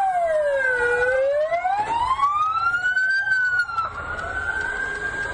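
Several emergency-vehicle sirens wailing at once, overlapping. The loudest sweeps slowly down and then climbs back up over a few seconds, while another holds a higher pitch.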